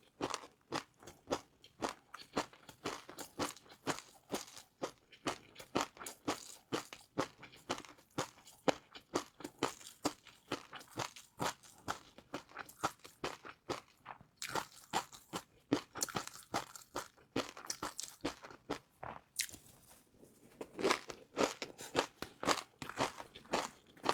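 Close-up eating sounds: crispy fried noodles being bitten and chewed, a rapid run of sharp crunches and crackles, several a second.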